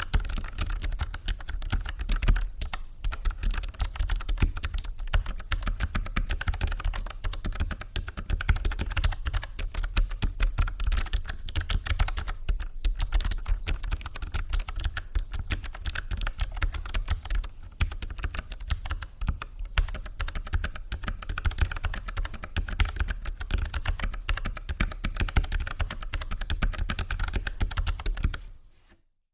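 Continuous rapid typing on a Logicool MX Mechanical Mini keyboard with clicky Kailh Low-Profile Blue switches, many keystrokes a second. It fades out about a second before the end.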